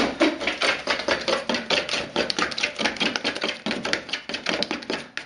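A fork beating pancake batter in a bowl, with fast, steady clicking strokes of the fork against the bowl, many to the second.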